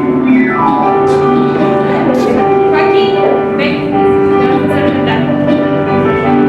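Music with long held melodic notes.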